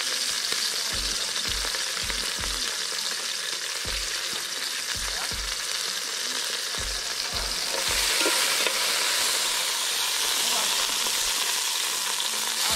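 Pot cooking over an open wood fire: a steady sizzling, crackling hiss that grows a little louder about eight seconds in. Soft low thumps come about twice a second through the first half.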